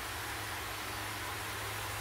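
A steady hiss with a constant low hum underneath, unchanging throughout, like a running machine or fan.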